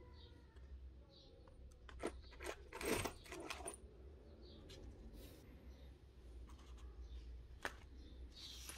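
Small rusty metal airgun parts and screws clinking and rattling into a paper filter cone as they are poured out with cleaning liquid, with light paper and plastic-cup handling. The loudest clatter comes about three seconds in, with scattered small clicks before and after.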